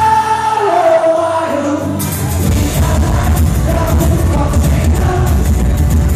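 Live rock band in concert, recorded from within the crowd: a held sung note, then about two seconds in the full band comes in with hard-hit drums and heavy bass.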